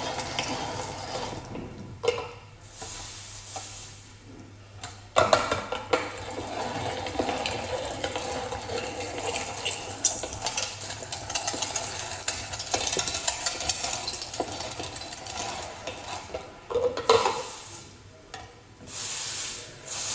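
Meat grinder mincing raw meat: an uneven churning, squelching noise as the meat is forced through the screw and cutting plate, broken by a few sharp plastic knocks, the loudest about five seconds in and again near the end.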